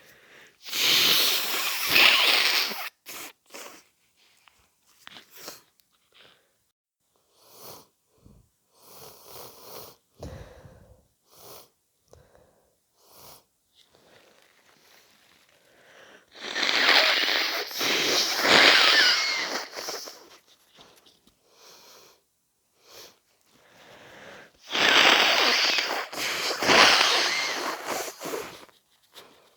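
A person with a head cold blowing their nose hard three times, each blow a long, loud, congested rush of air lasting two to four seconds with two or three pushes, with short sniffs and small sounds in between.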